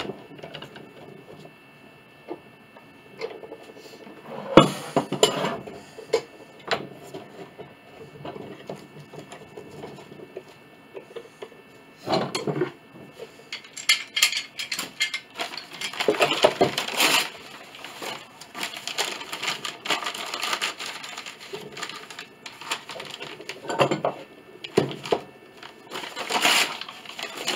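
Steel C-clamps being set and screwed down on a freshly glued wooden piece: metal clanks and knocks against wood, scattered at first, then a busier stretch of rattling and clicking in the middle and again near the end.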